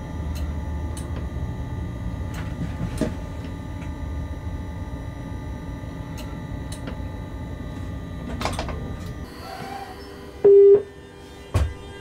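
Low rumble of a locomotive heard from inside its cab as it creeps along, with scattered clicks, dying away about nine and a half seconds in. Near the end comes a single short, loud beep, then a knock.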